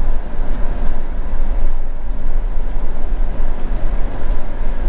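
Motorhome driving slowly: a steady low rumble of engine and road noise.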